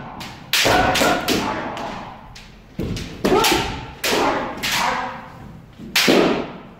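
Kendo practice: several sharp, echoing cracks of bamboo shinai strikes and stamping footwork on a wooden floor, with shouted kiai calls in between.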